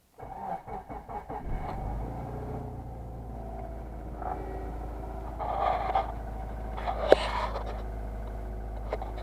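2005 Subaru Outback's 2.5-litre flat-four engine cranking and catching almost at once, then settling into a steady idle on freshly replaced spark plugs, running smoothly without misfires. A sharp click comes about seven seconds in.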